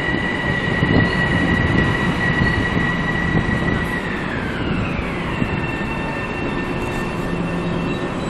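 Metro-North M7A electric train pulling into a station and slowing to a stop, with a low rumble of the cars under a steady high whine. About four seconds in, the whine glides down in pitch as the train slows, then holds at a lower note.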